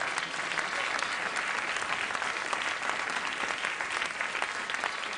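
Studio audience applauding, steady clapping throughout that starts to thin out just after the end.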